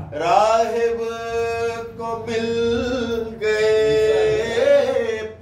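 A man's voice chanting devotional verses unaccompanied, holding long melodic notes in several phrases with brief breaks between them.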